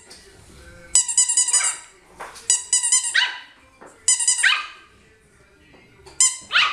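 A squeaky toy ball squeezed in four quick runs of squeaks, and a Yorkshire terrier puppy answering with short, high-pitched yaps after most runs.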